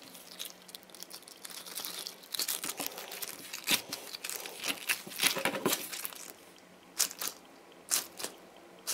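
Hands squeezing and kneading a clear, water-filled plastic squishy toy with bead sprinkles inside, giving a low, crackly rustle of many small ticks. It stops after about six seconds, followed by a few separate clicks near the end.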